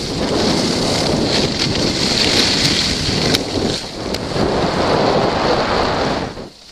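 Skis hissing and scraping over packed snow, with wind buffeting the camera microphone; the rush drops away sharply near the end.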